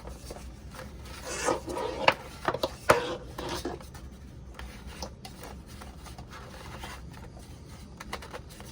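Power cord being wound back into a power-strip tower's built-in reel by turning its handle: rubbing and scraping with sharp clicks, busiest in the first few seconds and fainter after.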